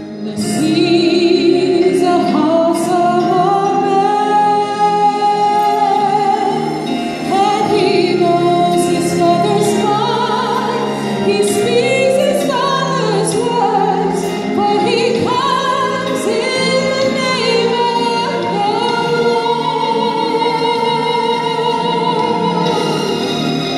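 A woman singing a slow melody in long held notes, over a steady sustained accompaniment.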